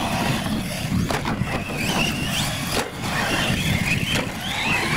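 Several radio-controlled UTV trucks racing over loose gravel, their motors whining and rising and falling in pitch over a steady gravel-and-tyre rumble. A few sharp knocks as trucks land from jumps or hit each other.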